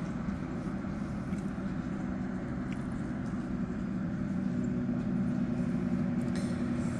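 Steady low hum of a distant engine, slowly growing louder over the last few seconds.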